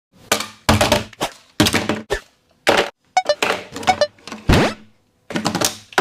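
A string of about a dozen separate thuds and knocks, each sudden and short, with a rapid run of clicks a little past three seconds in and a rising sweep about four and a half seconds in.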